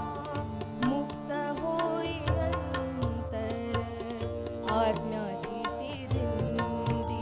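Marathi devotional song (abhang or bhajan) performed live: a solo voice sings ornamented, wavering lines over sustained instrumental notes and a steady hand-drum rhythm.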